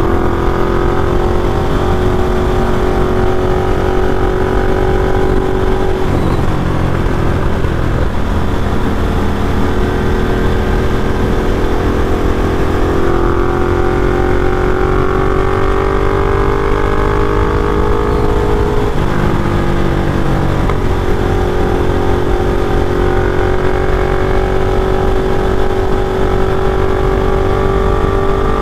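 Ducati Diavel's V-twin engine running under way on the open road, over a steady low rumble of wind and road noise. Its note drops sharply about six seconds in and again about nineteen seconds in, then climbs gradually each time, as at gear changes while accelerating.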